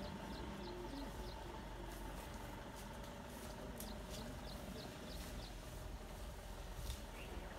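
Outdoor ambience beside a herd of Asian elephants walking through dry scrub, with a low steady hum and a few brief snaps. A small bird chirps in quick repeated series, twice.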